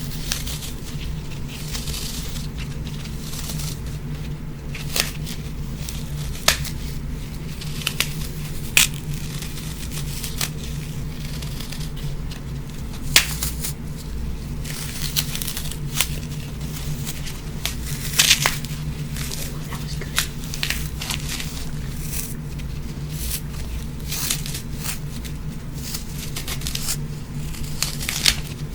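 Brittle foam block being crushed and broken apart by hand: scattered crunches and crackles with several sharp snaps, over a steady low hum.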